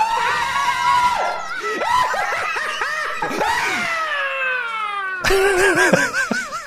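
Voices shrieking and yelping: a long held high cry, a run of short yelps, a long falling wail, then a sudden louder wavering cry about five seconds in.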